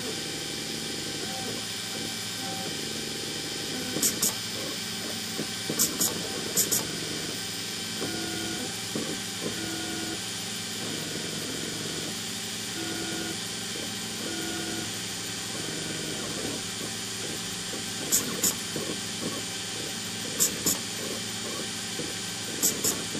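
Stepper motors of a homemade two-axis CNC pen plotter whining in short pitched moves as the machine draws, over a steady hiss. Pairs of sharp clicks come several times and are the loudest sounds.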